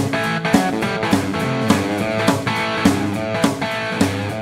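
Intro music led by guitar, with a steady beat.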